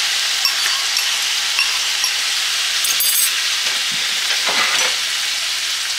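Vegetable stir-fry sizzling steadily in a hot skillet as a maple-syrup sauce is poured in and the pan is stirred with a wooden spoon. A short clink about three seconds in.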